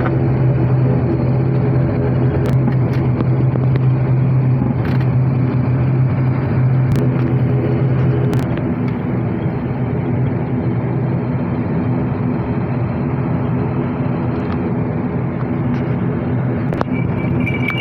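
Turboprop airliner's engines heard from inside the cabin while taxiing after landing: a steady drone with a strong low hum that eases slightly about halfway through, with a few faint clicks.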